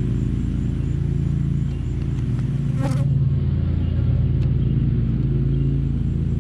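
Steady drone of many honeybees flying around an open hive during a frame inspection. There is one sharp click about three seconds in.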